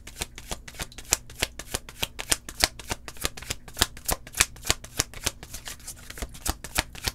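A deck of tarot cards being shuffled by hand: quick, crisp card-on-card flicks, about five a second, running on without a break.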